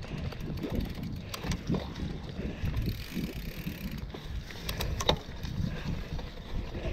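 Mountain bike ridden over a forest trail: a steady low rumble of tyres on the ground, with irregular rattling and sharp clicks from the bike's drivetrain and frame, the clearest around five seconds in.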